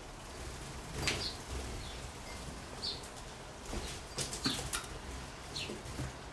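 Eurasian blackbirds moving about on a kitchen counter: a short flurry of wingbeats and sharp clicks of feet and beak about four seconds in, as one hops from the feeding bowl to a chair back. Short high chirps sound several times.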